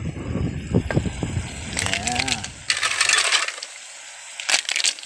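Mussel shells clattering and clinking as they are tipped from a steel pot into a metal pan of sauce, with a few more bursts of shell clatter as they settle. A short voice is heard about two seconds in.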